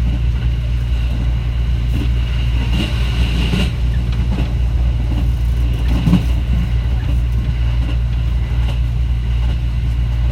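Electric passenger train running, heard from inside the car: a steady low rumble with a faint high whine over it.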